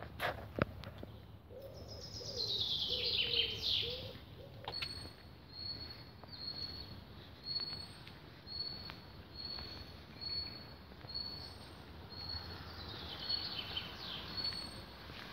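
Songbirds in the trees: a bird sings a descending trill twice, and a short high call repeats about every 0.7 seconds. A couple of clicks sound near the start.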